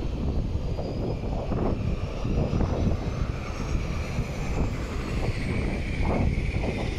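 Boeing 737-800's CFM56 turbofan engines just after touchdown: a roar with a thin whine that climbs steadily in pitch as the engines spool up for reverse thrust while the jet slows on the runway.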